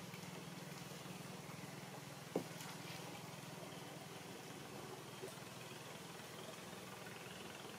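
Faint, steady low hum of a distant engine running, with a single sharp knock about two and a half seconds in.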